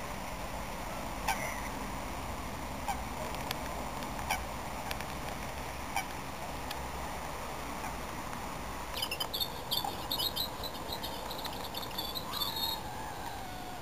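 Lakeside outdoor sound with scattered soft clicks, then a small bird's rapid, high twittering from about nine seconds in that stops shortly before the end.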